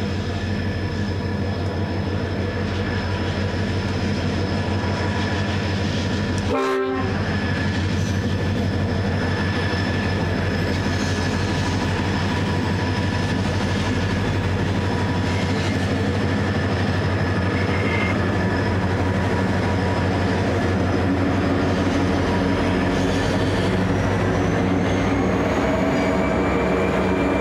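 Pacific National XR and BL class diesel locomotives hauling a loaded grain train: a steady engine drone with a constant high whine. There is a brief break about seven seconds in, and the whine rises slightly near the end.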